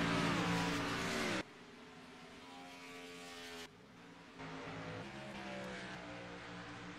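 Race car engine running loud under power, its pitch falling, then dropping off sharply about one and a half seconds in to a quieter, lower note. About four and a half seconds in it picks up again, its pitch slowly rising.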